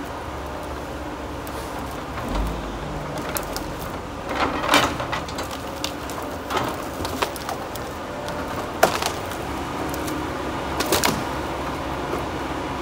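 Tigercat 234B knuckleboom log loader's diesel engine running steadily, with several sharp knocks and clatters of logs as the grapple grabs and moves them, the loudest about 5 and 9 seconds in.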